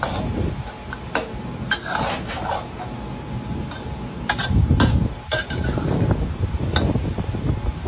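Long metal spatula scraping and clanking against a steel wok while stir-frying chunks of textured soy protein, with a few sharp clanks among the scraping, over a steady low background rumble.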